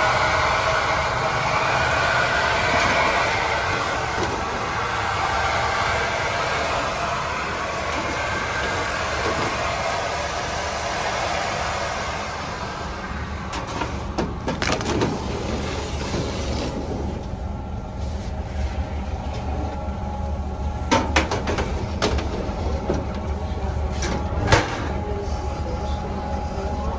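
Steady low machine rumble of bakery equipment, with metal clanks and scraping about halfway through as a steel tray of dough loaves is slid onto a deck-oven rack, and a few sharp metallic knocks later on.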